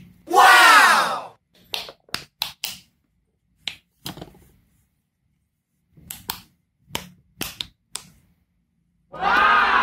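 Scattered light clicks and taps from fidget toys being handled. About half a second in there is a loud short tone that falls in pitch, and another like it begins near the end.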